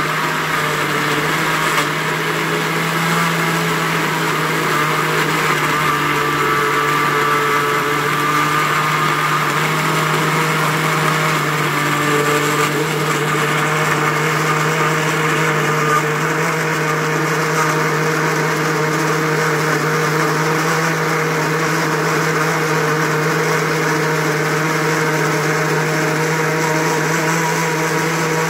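Electric countertop blender running steadily, its motor humming as it purées a wet mix of fresh coriander, green chilies, garlic and tomatoes into chutney.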